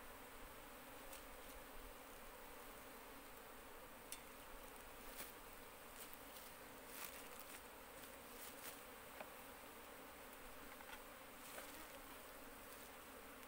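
Faint, steady buzzing of a cluster of Asian honeybees (Apis cerana) on an opened hive board of comb, with a few light clicks from the wooden board being handled.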